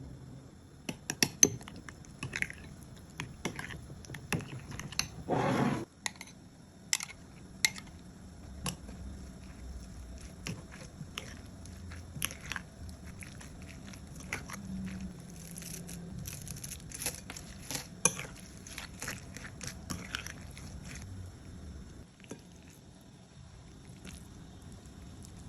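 Kitchen food-preparation sounds: irregular clicks, taps and soft crunches of utensils and ingredients being handled, with one short noisy squirt or rush of sound about five seconds in.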